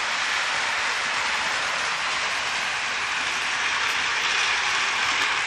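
K-line O-gauge boxcab model locomotive and its boxcars running on three-rail track: a steady running noise of motor and wheels on the rails.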